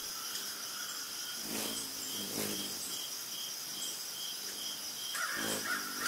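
Forest ambience: crickets chirping in a steady, even pulse of about two chirps a second over a constant high insect drone. Twice, about a second and a half in and again near the end, a brief lower-pitched animal sound rises over it.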